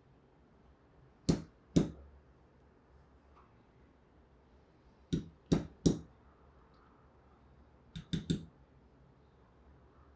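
Sharp taps or knocks of small hard objects on a hard surface: two about a second in, three around the middle, and three more near the end.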